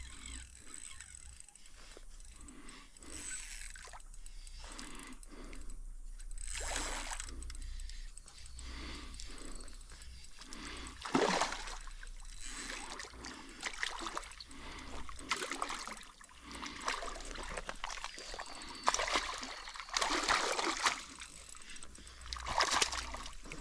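A hooked fish splashing and thrashing at the surface of shallow water as it is played on a fishing rod, with a sharp splash about eleven seconds in. Near the end the fish is dragged from the water onto the bank, with rustling and crunching of dry leaves and twigs.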